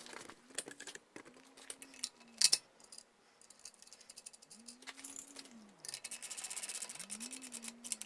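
Hand tools working metal as a generator is bolted onto a car engine: scattered clicks and a sharp knock about two and a half seconds in, then a ratchet wrench clicking rapidly for about two seconds near the end. A bird coos softly several times in the background.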